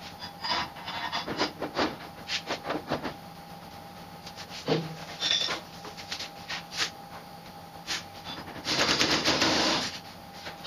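Clinks and knocks of metal parts and tools being handled, then a pneumatic impact wrench running in one burst of about a second near the end, fastening the rotisserie mount to the car body.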